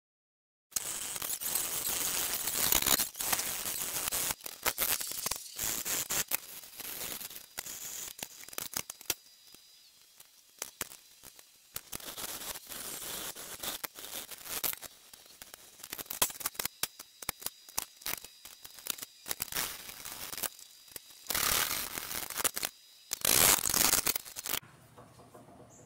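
Hand file scraping across steel clamped in a bench vise, in irregular push strokes starting about a second in, with a few louder strokes near the end.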